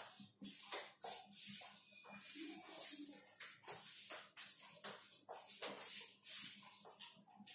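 Marker pen on a whiteboard writing out an equation: a string of short, irregular scratchy hisses, one for each stroke.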